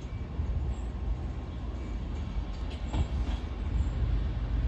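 Diesel locomotive approaching slowly from a distance, its engine a low steady rumble that grows a little louder near the end.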